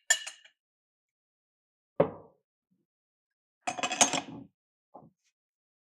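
Metal clicks and clanks of a hand-held lever-arm pipe bender being fitted onto 15 mm copper pipe and worked for a 90-degree bend: a sharp knock about two seconds in, then a cluster of metallic clinks and rattles near four seconds and a small tap after it.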